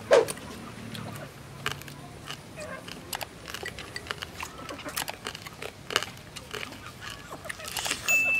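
Close-up eating sounds of people biting and chewing grilled field mice: wet smacking and short crunchy crackles, with a louder mouth sound just after the start. A short, steady high beep sounds near the end.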